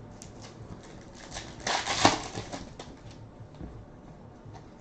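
Trading cards being handled and slid past one another: faint ticks, and one louder rustling swish about two seconds in.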